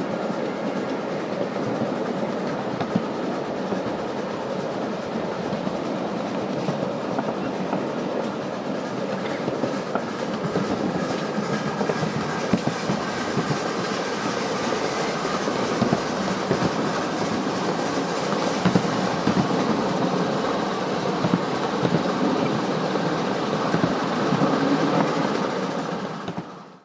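A 1½-inch-scale live steam train on 7½-inch-gauge track, running steadily with its wheels clicking over the rail joints. The sound fades out near the end.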